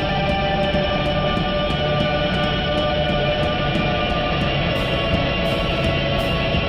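Electric guitar run through live electronic processing, making a dense, sustained wash of many held tones, with faint high ticks repeating about three times a second.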